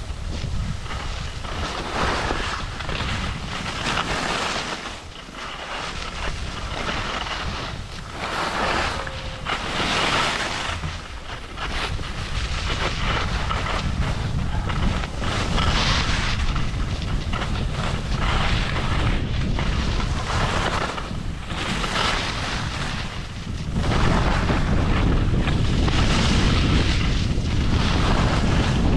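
Wind buffeting the microphone during a downhill ski run, with skis hissing and scraping across the snow in repeated surges every few seconds. The wind rumble grows louder and steadier near the end.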